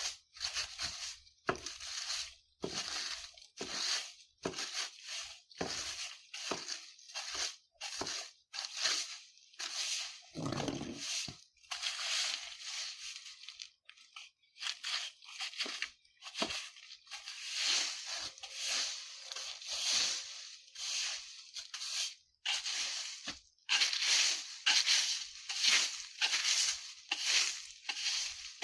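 Broom sweeping dry autumn leaves over the ground: repeated rustling swishes, roughly one stroke a second, with one heavier, deeper stroke about ten seconds in.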